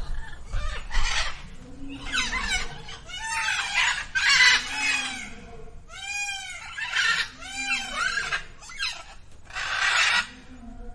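Peafowl calling: a run of short, loud calls about one to two a second, several of them rising and falling in pitch.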